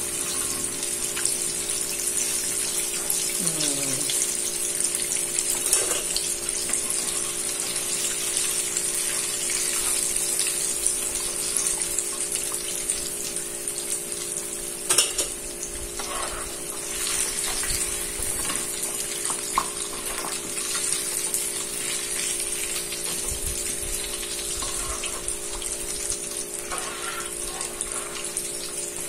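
Battered chicken pieces deep-frying in a wok of hot oil, a steady sizzling and bubbling. A steady low hum runs underneath, and there is a single sharp clink about halfway through.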